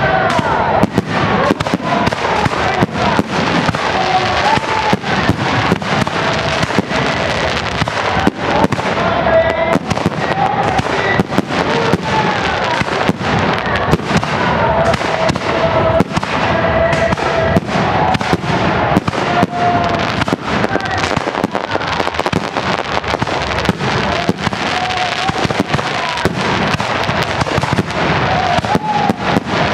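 Fireworks display: aerial shells bursting in a rapid, continuous barrage of bangs, many a second, with no let-up.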